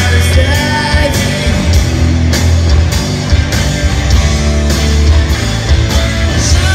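Live rock band playing loudly: electric guitar over a heavy bass line and drums, with cymbal strokes cutting through.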